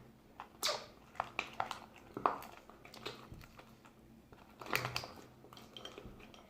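Slime being handled and worked by hand: an irregular string of short clicks and crackles, the loudest about half a second in, around two seconds in and near five seconds in.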